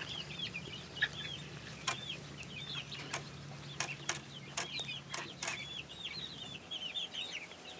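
A flock of young chicks, about four to six weeks old, peeping continuously: short, high, hooked chirps several a second, with scattered sharp clicks among them.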